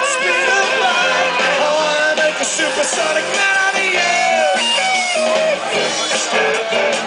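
A rock band playing a song, with a sung vocal line over guitar and band accompaniment.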